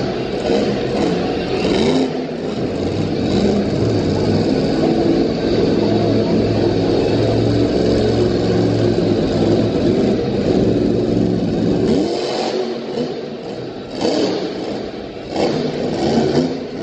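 Monster truck engines revving and running hard, the pitch rising and falling as the trucks drive over crushed cars. The deep engine note falls away about twelve seconds in.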